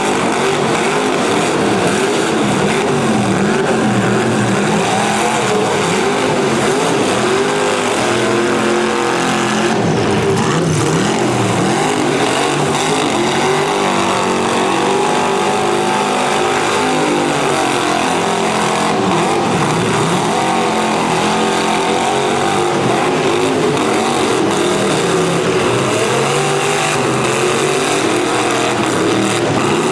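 Several demolition derby cars' V8 engines running and revving together, their pitches rising and falling over one another.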